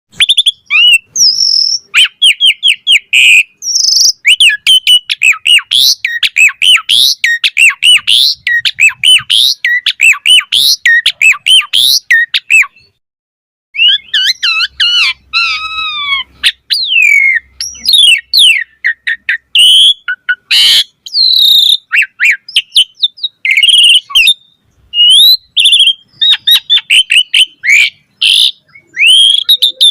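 Asian pied starling (jalak suren) singing vigorously: a fast, varied run of whistles and chattering notes. There is a short pause about 13 seconds in and a harsh rasping note around 20 seconds.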